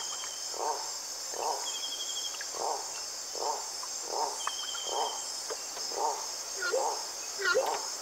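Rainforest ambience: a steady high insect chorus, with an animal call repeating evenly a little more than once a second. Short high trills come three times, and louder sweeping calls come near the end.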